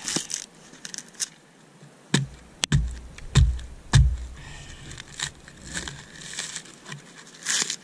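Coconut husk being torn off on a pointed stick driven into sand: four heavy thumps about two to four seconds in as the nut is slammed onto the stick, with sharp cracks and scratchy tearing of the husk fibres as it is levered apart.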